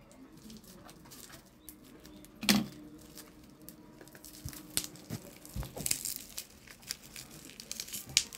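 Packing tape and plastic wrapping crinkling and tearing as a taped parcel is pulled open by hand, with one sharp loud crackle about two and a half seconds in and scattered crinkles and clicks through the second half.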